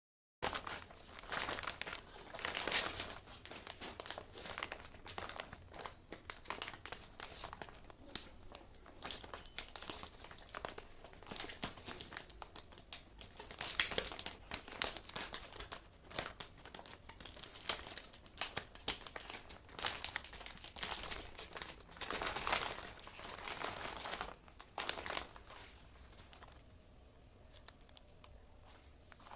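Shipping packaging being crinkled, rustled and torn open by hand, an irregular run of crackles and sharp clicks that grows quieter near the end.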